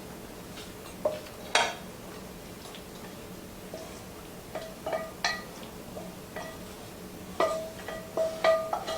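A serving utensil clinking and scraping against a pan and plates while pasta is dished out: a scattering of sharp clinks, several of them leaving a brief ringing tone.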